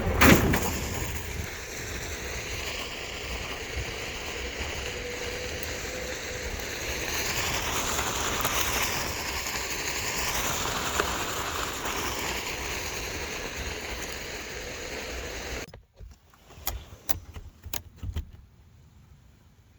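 Steady wind and road noise from a moving vehicle, cutting off suddenly about sixteen seconds in, followed by a few sharp clicks.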